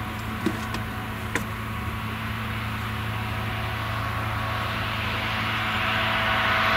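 Claas Jaguar forage harvester chopping whole-crop silage under load: a steady drone of engine and chopper with several steady tones, growing louder as it comes closer. Two short clicks in the first second and a half.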